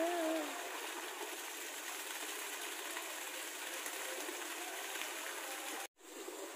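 Steady background hiss of an outdoor place, with a brief voice right at the start and faint distant voices later; the sound drops out completely for a split second near the end.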